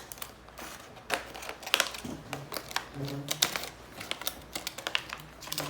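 Irregular light clicks and taps of plastic toy doctor-set pieces and packaging being handled, with a faint low voice murmuring briefly in the middle.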